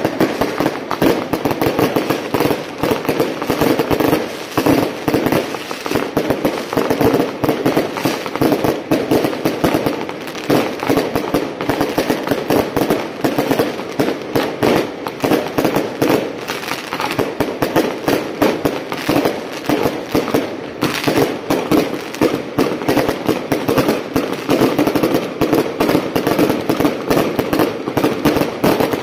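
Strings of firecrackers going off in a continuous, dense crackle of rapid bangs.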